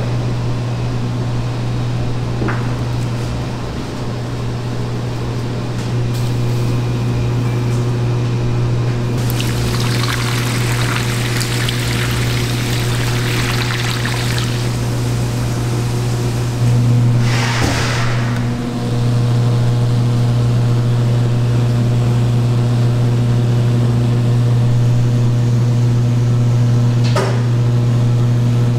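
Water pouring into a stainless steel bowl for several seconds, over a steady low machine hum. A second, shorter rush of noise follows a few seconds later, and there is a single click near the end.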